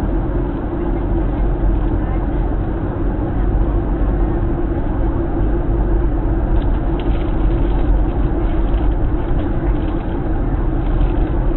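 Steady cabin noise inside a Boeing 737-900 airliner, a drone of airflow and jet engines, with indistinct chatter from passengers.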